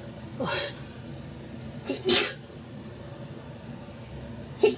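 A man sneezing three times: a smaller sneeze near the start, a loud one about two seconds in and another near the end. The sneezing comes from what he thinks may be a cold.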